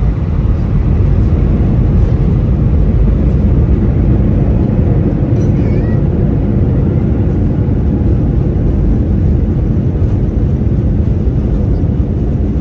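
Loud, steady roar inside an Airbus A320-200's cabin as the jet lands and rolls out on the runway.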